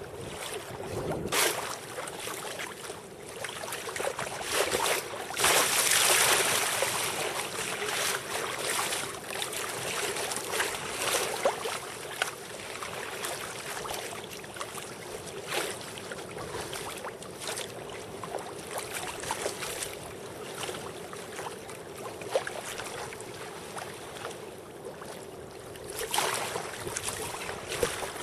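Choppy sea water splashing and slapping against a sea kayak's bow, heard close from the kayak's deck, in irregular surges with a bigger rush of water about five seconds in.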